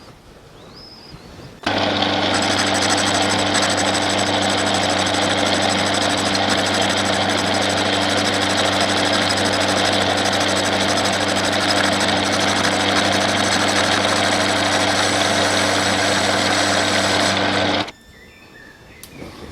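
Bernardo P 600 G metal lathe running with a steady, even machine hum while a boring bar turns out a cast aluminium piston held in a four-jaw chuck. The sound starts suddenly about two seconds in and cuts off suddenly near the end.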